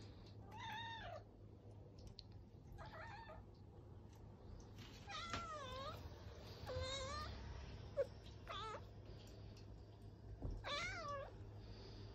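Abyssinian cats meowing insistently for a treat: about six separate meows of about half a second each, several bending up and down in pitch, with a single sharp click about two-thirds of the way through.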